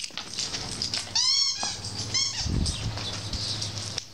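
A dog gives two short, high whines, the first about a second in and the louder of the two, each rising and falling in pitch, followed by a brief low sound.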